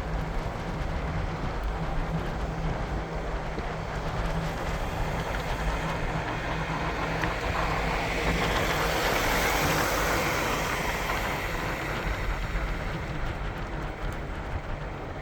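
Steady traffic rumble from a vehicle on the road. It swells about eight seconds in, as if something passes close, and eases off again after about three seconds.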